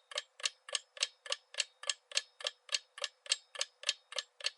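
Clock-ticking sound effect, even ticks about three and a half a second, counting down the pause for answering a quiz question.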